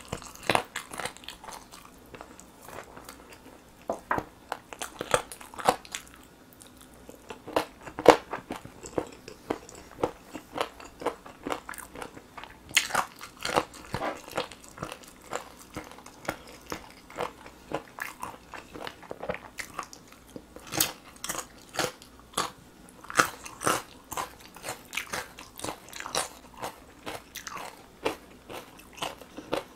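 A person biting into and chewing sauce-glazed grilled chicken drumsticks: many irregular crunchy bites and chews, the sharpest about eight seconds in.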